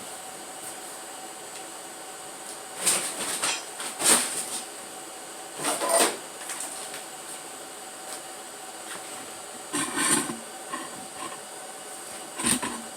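Loose engine parts clattering as they are handled and moved in a box of parts, in several short bursts of rattling knocks, over a faint steady hum.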